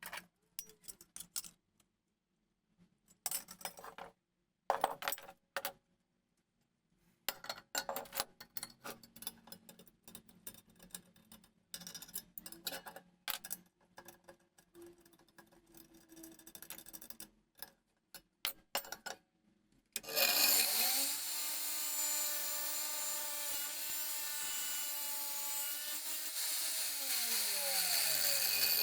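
Scattered taps, clicks and scraping of hand work on metal parts, then about twenty seconds in an angle grinder starts and runs with a loud, steady whine. Near the end its pitch falls.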